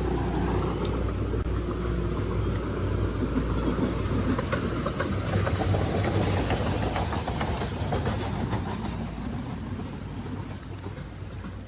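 Small tourist trolley train running on narrow-gauge rails: a low rumble with irregular clicking and clacking from the wheels, fading away over the last few seconds.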